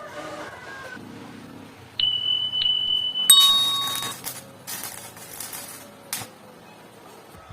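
A few sharp knocks, each followed by a clear ringing tone; the loudest, about three seconds in, rings on for nearly a second. Metal being struck.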